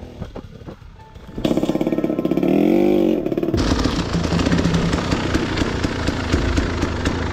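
Enduro dirt bike engine comes in suddenly about a second and a half in, is revved up and back down, then runs on steadily.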